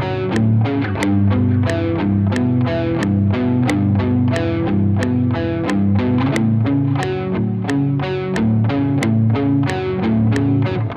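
Distorted electric guitar playing a repeating riff, over a sharp tick about three times a second.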